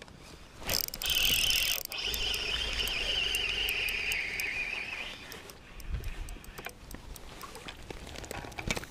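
A knock, then a spinning fishing reel whirring for about four seconds as line is wound in, its pitch sinking slightly, with light ticks scattered around it.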